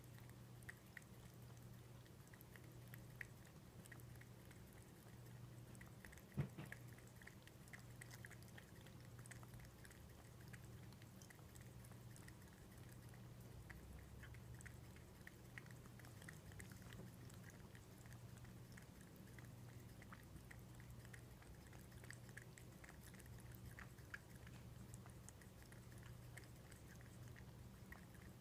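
American Shorthair cat lapping water from a ceramic bowl: faint, quick irregular lapping ticks over a low steady hum. A single sharp knock about six seconds in.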